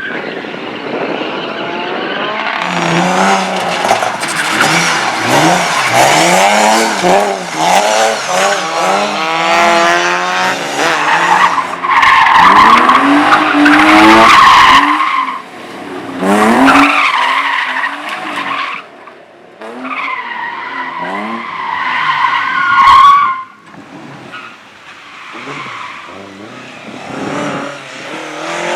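Slalom race car engine revving hard, its pitch climbing and falling again and again through gear changes, with tyres squealing through the turns. The loudest squeal comes about halfway, another just before the engine note drops away suddenly near the end.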